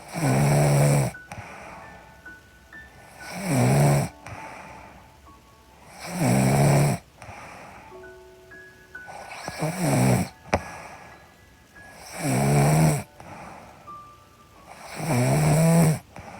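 A sleeping woman snoring: six loud snores, each about a second long, coming roughly every three seconds.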